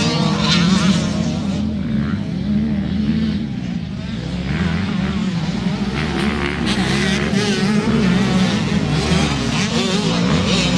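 Youth motocross bikes racing on a dirt track, their engines revving up and down in pitch as the riders open and close the throttle.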